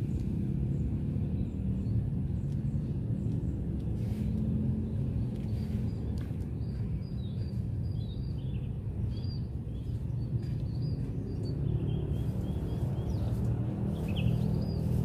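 Outdoor garden ambience: a steady low rumble with a faint hum, and small birds chirping briefly now and then, mostly in the middle and near the end.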